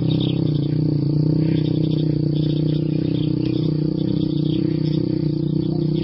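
A steady, unbroken low mechanical hum, with short high chirps repeating faintly over it.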